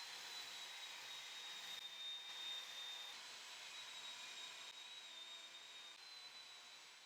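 Electric woodworking saw running, heard faintly as a steady hiss with a thin high whine.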